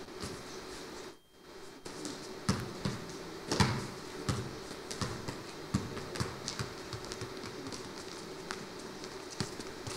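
A football being juggled and bounced off a boy's feet and the hard studio floor: irregular dull thuds, the loudest about three and a half seconds in, over a faint steady hum.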